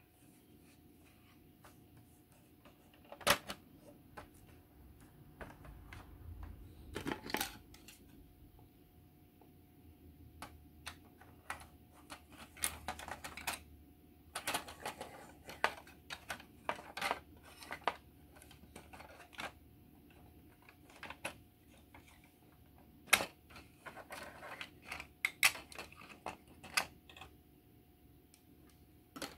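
Hard plastic parts of a Trumpeter F-14 Tomcat scale model kit clicking, tapping and knocking together as the fuselage and engine nacelles are handled and test-fitted. The clicks come irregularly, some in quick clusters, with a sharper knock about three seconds in and another about three-quarters of the way through, over a faint steady hum.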